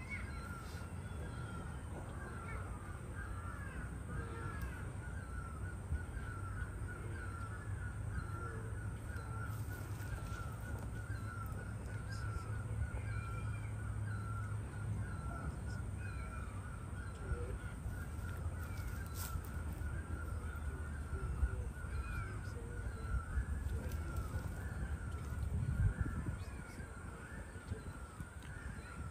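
Birds calling and chattering without a break, with a low rumble underneath that swells near the end.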